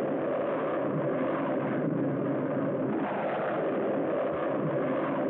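Steady, noisy rocket-engine sound effect from an old film soundtrack, dull with no high end, running evenly without a break as a spaceship's stages separate.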